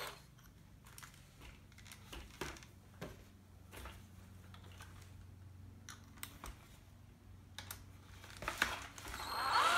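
Faint scattered clicks and taps of small screws, plastic parts and a cordless drill/driver being handled, over a low steady hum. Near the end the sound grows louder again as the drill goes back to work.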